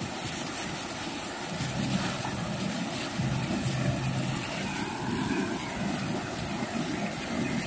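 Steady hissing drone of a gas lantern burning on its canister, with light crinkling of plastic wrap as slices of cake are unwrapped.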